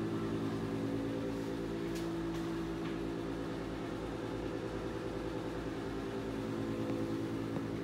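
Built-in wall air conditioner running: a steady, even hum, with a couple of faint clicks about two seconds in.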